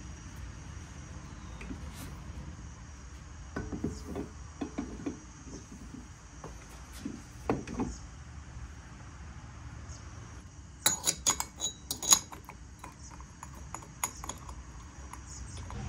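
Metal engine parts knocking and clinking as they are handled and fitted together by hand. Scattered soft knocks come in the first half, then a quick run of sharp metallic clicks about eleven seconds in.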